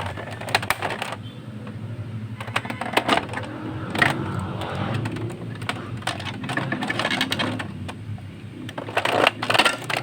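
Plastic parts of an Epson L360 printer being handled and unclipped: irregular clicks and knocks, with a cluster near the end, over a steady low hum.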